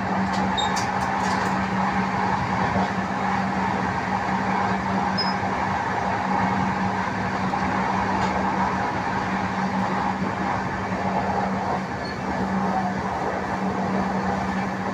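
Express passenger train running steadily at speed: the even rush and rumble of the coach and its wheels on the rails, under a steady low hum. A few faint ticks about a second in.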